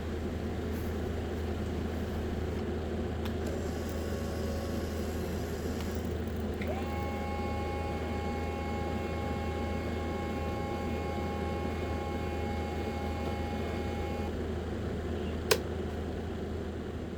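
Small DC motor of a homemade battery-powered cooling device running steadily with a low hum. A whine rises and then holds about seven seconds in and stops about fourteen seconds in. A single sharp click comes near the end.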